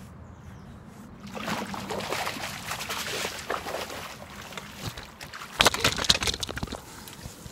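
A hooked tench splashing and thrashing at the surface as it is drawn over a landing net, for about three seconds. Near the end comes a burst of loud knocks and rustling, the loudest part, as the camera on its tripod is bumped.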